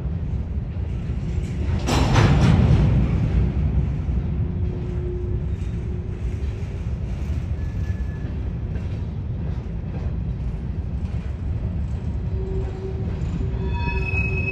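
A train rolling past with a steady low rumble, swelling into a louder burst of noise about two seconds in. Thin steady tones come and go over the rumble, most clearly near the end.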